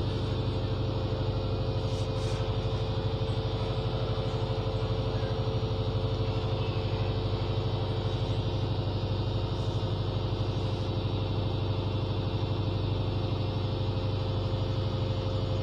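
Steady drone of a running engine: a constant low hum with a fine even pulse and a steady whine above it, unchanging throughout.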